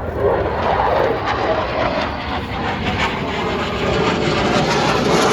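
F-22 Raptor's twin F119 afterburning turbofan jet engines in a steady rushing roar during a slow low pass, growing a little louder and brighter near the end.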